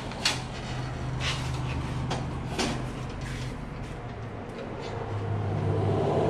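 A few sharp metal clinks and knocks as a bolt and parts are worked into the metal housing of a Grasshopper snow blower attachment, over a steady low hum that grows louder near the end.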